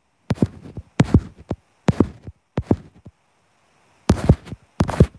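Handling noise on a phone's microphone: a run of irregular thumps and bumps, some in quick pairs, as the phone is held and its screen scrolled.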